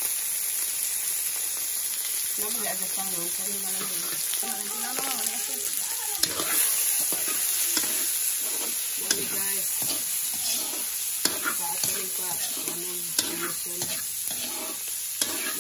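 Diced meat sizzling in a hot steel wok while a long metal ladle stirs it, the frying hiss steady and the ladle scraping and clinking against the wok, with more frequent clinks from about halfway through.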